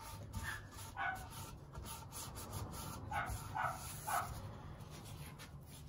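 A dog barking over and over, several short barks about one and three to four seconds in, faint under the soft rub of a cloth wiping water off a rosewood guitar body.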